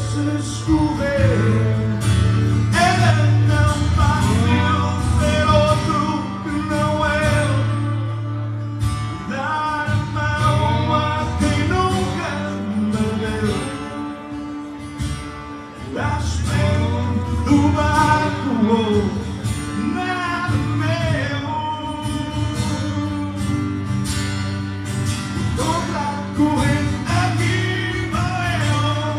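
Live performance: a man singing to his own acoustic guitar, accompanied by a lap steel guitar.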